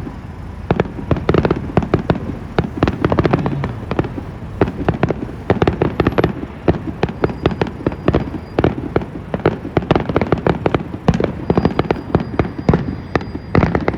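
Fireworks going off in a rapid, irregular barrage of cracks and pops, many per second, loud and continuous.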